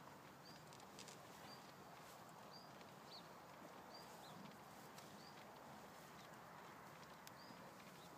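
Faint sound of cattle chewing the cud, with a bird repeating a short high chirp about once a second.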